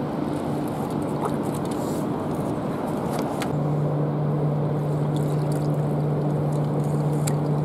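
A steady low engine hum over a rumbling background, growing stronger about halfway through, with a couple of faint clicks.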